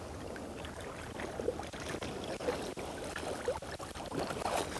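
Sea water sloshing gently, with scattered small splashes and ticks around a wading angler.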